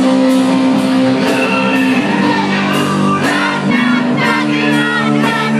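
Rock band playing live: sustained electric guitar chords, a drum kit keeping a steady beat of about two hits a second with cymbals, and a singer singing and shouting over it.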